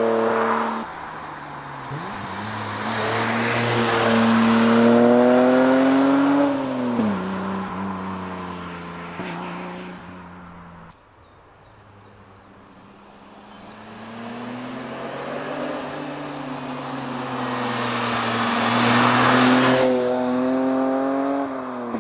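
BMW Z1's straight-six engine and exhaust pulling hard as the car approaches and drives past, twice. Its note rises as it nears, drops sharply in pitch as it goes by, then fades away.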